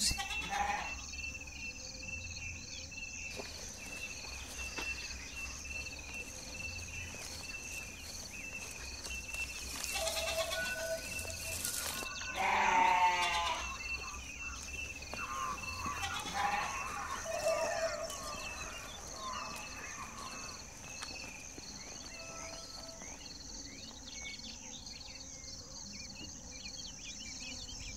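A ewe bleating in a few calls, the loudest about twelve seconds in, as she tries to drive off feral hogs that are harassing her. Insects chirp steadily behind.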